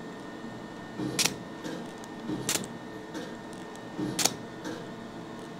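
Laser hair removal handpiece firing three pulses against the skin, each a sharp snap, about a second and a half apart, over the faint steady hum of the laser unit.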